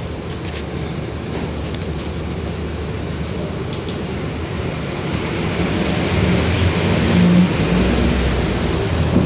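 Mercedes-Benz OF-1721 Bluetec 5 city bus under way, its four-cylinder diesel and drivetrain running steadily with the differential growling. The sound grows louder, with a low hum coming up, from about five seconds in.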